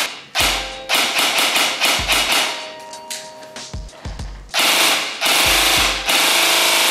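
Loud electronic intro music with stuttering breaks, rapid machine-gun-like rattles through the first half, and a heavy low hit about every second and a half.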